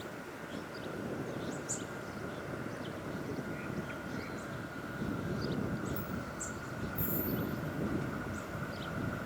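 Train rolling past: a steady low rumble with a faint steady high whine over it, growing a little louder about halfway through.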